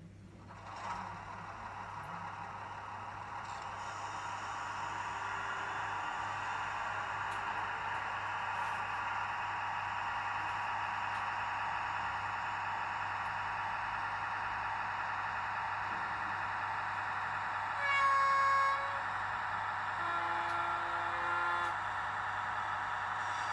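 Model train sound decoder playing a steady running drone through its small onboard speaker, starting about a second in and slowly growing louder. Near the end come two horn blasts: first a higher-pitched one, the loudest sound, then a lower-pitched, slightly longer one.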